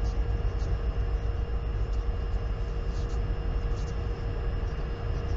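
Wind rumbling against the microphone of an outdoor nest camera, a steady low buffeting noise. A constant faint hum and a few light ticks run underneath it.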